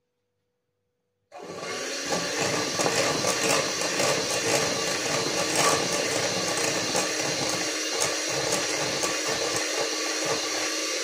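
Handheld electric mixer switching on about a second in and running steadily, its beaters whirring through cream cheese batter in a glass bowl.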